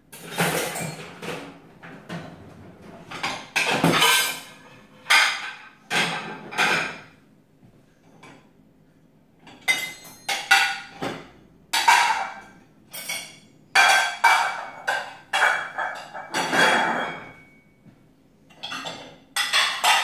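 Ceramic bowls and plates clinking and clattering as they are lifted out of a dishwasher rack and stacked: irregular knocks with brief ringing, with a quiet pause of about two seconds midway.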